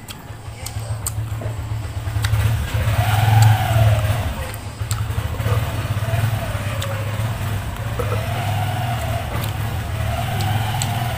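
A motor vehicle's engine running, with a low steady rumble and a whine that rises and falls several times. It is loudest about three to four seconds in.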